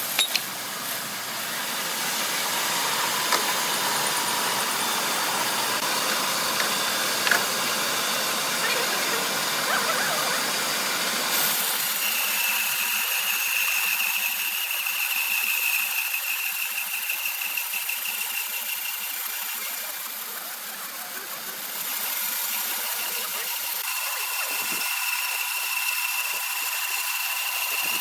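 Sawmill saw machinery running, a steady mechanical noise. About a third of the way in it changes to a thinner sound with a high steady whine, which fades briefly and then returns.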